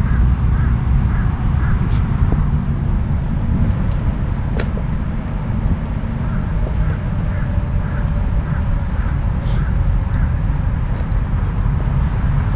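Steady low wind rumble on the microphone, with a bird calling over and over in short repeated calls, a run near the start and a longer run from about halfway through.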